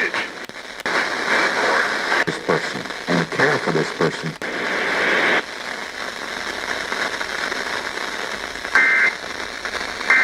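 Radio reception full of static and crackle, with a faint voice buried in the noise for the first five seconds, then a steady hiss. Near the end come two short bursts of the two-tone EAS digital data signal.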